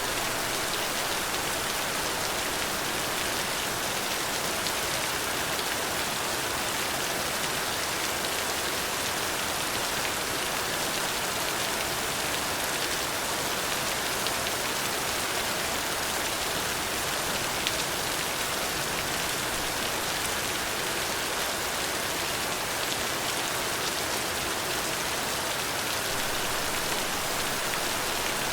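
Steady rain falling, an even hiss with fine ticks of drops hitting a surface, a slightly louder drop about two-thirds of the way through.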